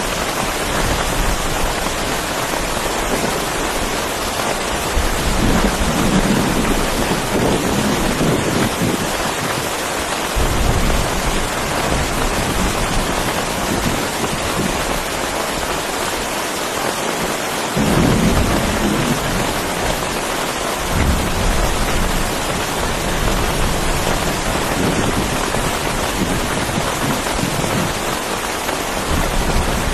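Heavy rain falling steadily in a thunderstorm, with low rolls of thunder rumbling in several times, the strongest about eighteen seconds in.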